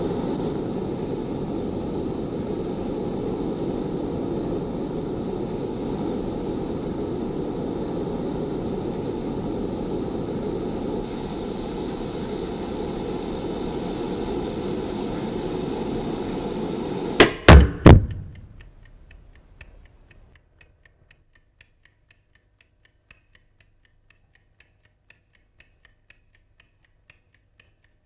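A steady rumbling roar, then three loud knocks in quick succession, after which it goes quiet except for faint, fairly regular ticking.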